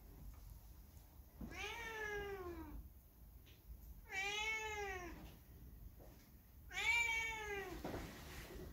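Domestic cat meowing three times, about two and a half seconds apart. Each meow is a drawn-out call of about a second that rises and then falls in pitch, and the last is the loudest.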